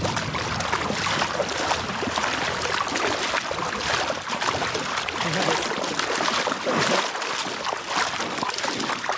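Shallow creek water running and splashing steadily, with irregular small splashes throughout.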